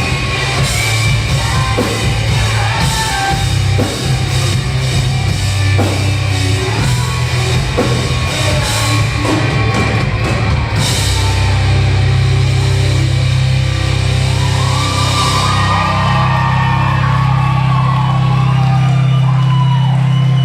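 Rock band playing live at full volume, drum kit and cymbals pounding under distorted guitars. About halfway through the drums drop out, leaving a held low chord with a melodic line wavering over it.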